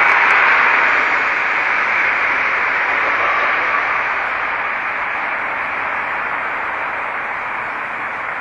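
Steady, even hiss like static, slowly getting quieter.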